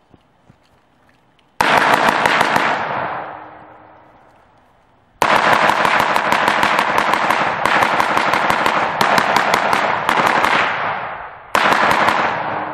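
AR-15 rifle firing 5.56 mm M855 rounds in three strings of rapid shots: a short burst about a second and a half in, a long string of about six seconds with brief breaks starting about five seconds in, and a short burst near the end. The shots ring out with a trailing echo after each string.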